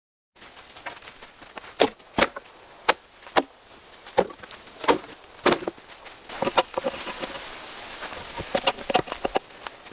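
A blade chopping: a series of sharp, irregular strikes, about one or two a second, with a few quick double and triple hits.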